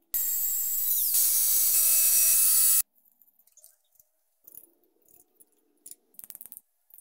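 Power tool running hard on metal for nearly three seconds, a hissing whine that drops slightly in pitch and grows louder about a second in as it takes load. After it cuts off come faint clicks and clinks of saw chain and a wrench being handled.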